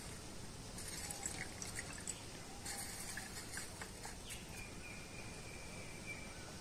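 Water poured in a thin stream from a small plastic container into a miniature aluminium pot, trickling faintly with small splashes, stopping near the end.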